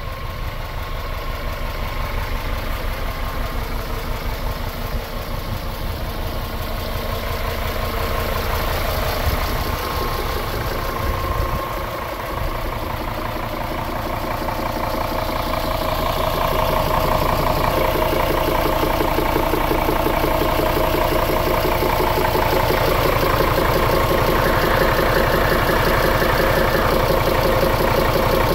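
The Scania P280's five-cylinder diesel engine idling steadily, growing louder about halfway through.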